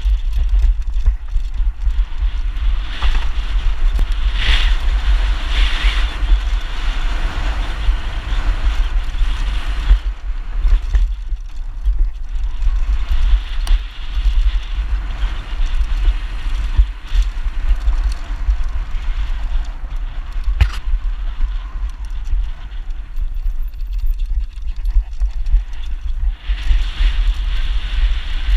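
Heavy wind buffeting on the microphone and tyre noise on a loose dirt trail during a fast downhill mountain-bike descent, with the bike rattling and knocking over bumps. The tyre hiss is strongest in the first ten seconds and again near the end, and there are a few sharp knocks along the way.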